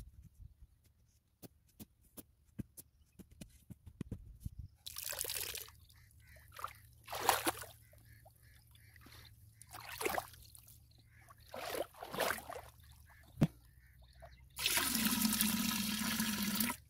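Liquid being poured into a plastic drum of mixed solution, a steady splashing pour of about two seconds near the end. Before it come several short splashes of water, and at the start faint sharp clicks of a spade working soil.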